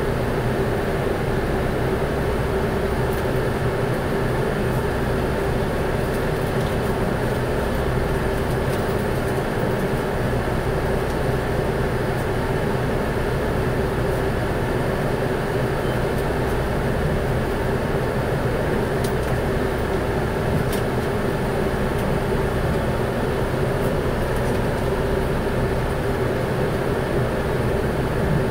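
Electric router motor running steadily, a continuous whine at one constant pitch.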